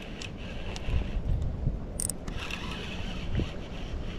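Wind buffeting the microphone in a steady low rumble, with a few light clicks and one sharper click about two seconds in.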